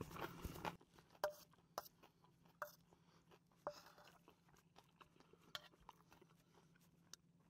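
Faint, scattered clicks of a metal spoon against a stainless steel bowl, a few with a short ring, amid near silence; soft eating sounds in the first second.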